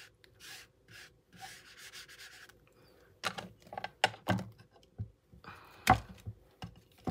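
An ink pad rubbed and dabbed against a plastic embossing folder, a soft scraping sound for the first couple of seconds. Then several plastic knocks and clicks as the pad and folder are handled and put down on the cutting mat, the loudest knock a second or so before the end.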